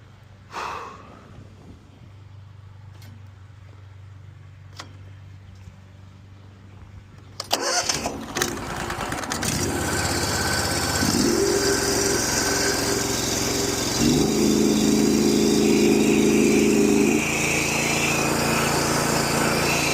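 A gas-engine pressure washer: a low engine hum, then about seven and a half seconds in a sudden loud onset as the machine comes up to full noise, running hard with a hissing water spray; the engine note steps up twice and eases slightly near the end.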